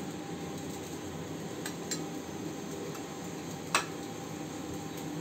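A few light clicks and clinks of kitchen utensils, the sharpest about three and a half seconds in, over a steady background hiss.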